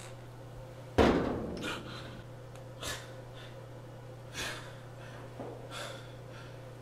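A sudden loud bang about a second in, then a man's heavy, ragged breaths and gasps, several of them spaced over the following seconds, over a steady low hum.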